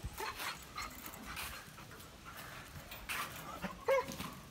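American bully dog panting softly while nosing a balloon, with two short high-pitched squeaks about three and four seconds in.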